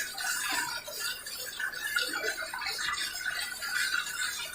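Public restroom toilet flushing nonstop, water rushing through the bowl in a steady hiss: the flush is not shutting off.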